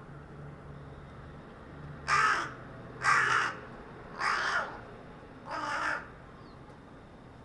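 Carrion crow cawing four times, hoarse calls about half a second each and roughly a second apart, the last one a little quieter.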